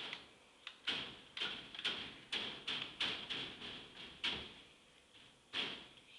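Sharp plastic clicks and knocks from a toy John Deere ride-on tractor being handled and tapped by a small child, irregular, about two a second, then a pause and one last knock near the end.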